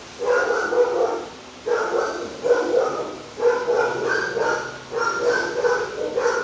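Dogs barking in about six loud bursts, each about a second long, with short gaps between them.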